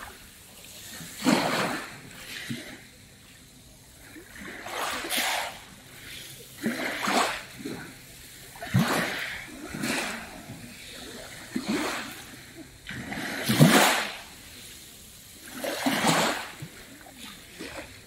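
Small waves splashing onto a fine pebble beach and washing back over the pebbles, a surge every one to two seconds. The loudest come about a second in and about fourteen seconds in.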